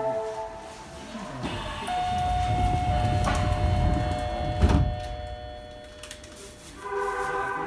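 Subway train's door-closing chime sounding steadily for about four seconds while the doors slide shut, ending in a knock at about four and a half seconds as they close; a low rumble runs underneath. Near the end a new chime starts.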